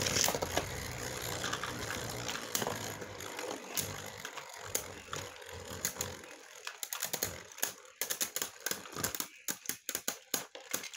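Two Beyblade spinning tops whirring on a metal stadium floor and knocking into each other. As they slow, the whir fades and the hits turn into a quick run of sharp clicks and clatters over the last few seconds.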